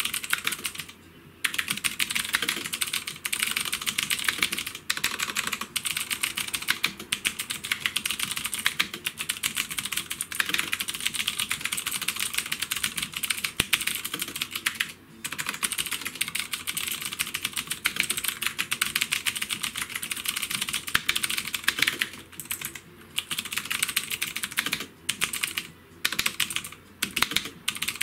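Fast typing on a Havit HV-KB366L mechanical keyboard: a rapid, continuous clatter of key clicks, broken by a few brief pauses.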